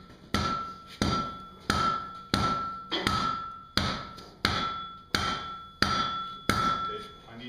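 Blacksmith's hand hammer striking glowing hot steel on an anvil: about ten even blows, roughly one and a half a second, each leaving a clear ringing tone from the anvil. The blows stop shortly before the end.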